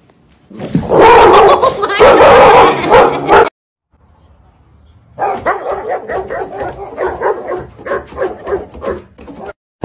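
Dogs barking: about three seconds of loud, dense barking and yelping, then after a short gap a run of repeated barks, roughly three a second.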